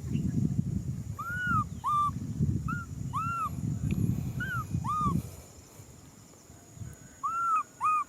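Baby macaque crying out in a series of short, high, arching calls, each rising and falling in pitch, about eight in all, with several close together near the end. A low rumbling noise runs under the calls and stops about five seconds in.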